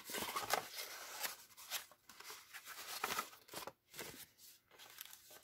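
Handmade paper envelopes and packaging being handled and opened: short, irregular paper rustling and crinkling.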